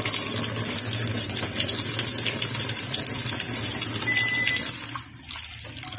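Water gushing steadily from the inlet of a SANYO/AQUA top-load washing machine into its drum as it fills, a full-strength flow that counts as standard; a weak supply here is what trips the E1 error. The pour falls away sharply about five seconds in.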